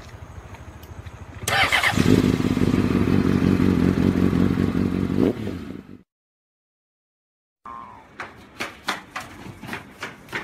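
Motor scooter engine catching with a burst and running loud and steady for about four seconds, then cut off abruptly. After a couple of seconds of silence comes a run of light taps and knocks.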